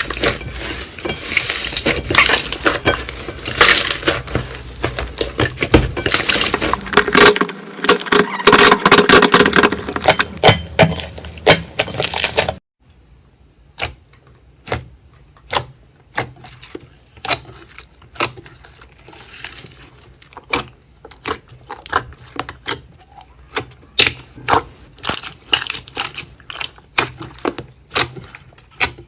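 Slime being squeezed and worked by hand: loud, dense crackling and popping for about twelve seconds, then it cuts off suddenly and gives way to quieter, separate pops and clicks about one or two a second.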